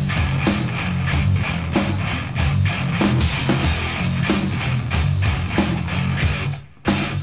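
Thrash metal recording: distorted electric guitar riffing over a drum kit with regular hits, cutting out briefly near the end before the band comes back in.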